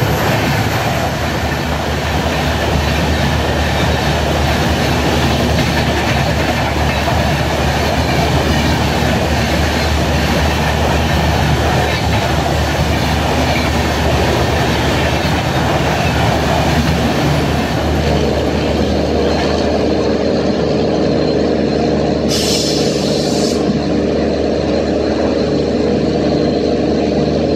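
Express passenger train passing close at speed, about 110 km/h: a loud steady rush and clatter of coach wheels and bogies on the rails. In the last several seconds a steadier humming tone comes in, with a brief hiss a little over twenty seconds in.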